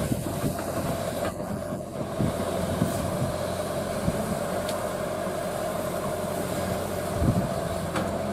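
Excavator's diesel engine and hydraulics running steadily under load, with a constant whine over a low rumble and a few low knocks, one louder thump about seven seconds in.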